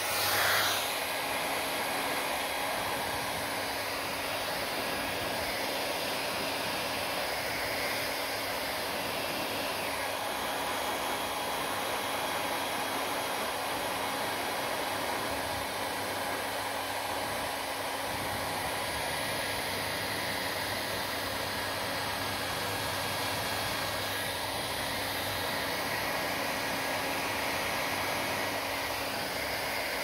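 Handheld hair dryer blowing steadily: a constant rush of air over a low motor hum, the rush shifting briefly now and then as the dryer is moved around the head.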